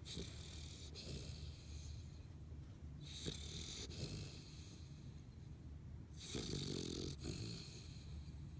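A small pit bull-type dog snoring in its sleep: slow, airy, hissing snore breaths about every three seconds.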